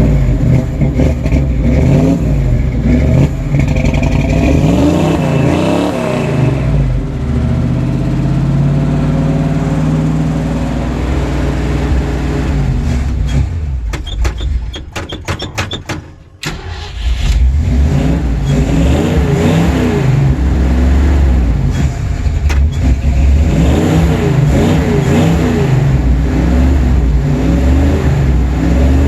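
Old Ford Bronco engine running cold and being revved with repeated throttle pumping. About halfway it stumbles with sputtering pops and nearly dies, then picks up and revs on again.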